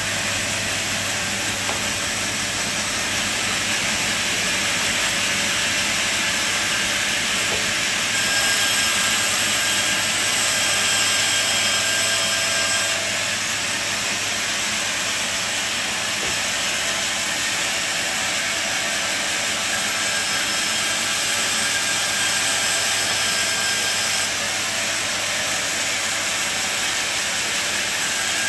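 Sawmill machine running, a loud, steady hissing noise with faint tones in it. It gets louder about eight seconds in and drops back about thirteen seconds in.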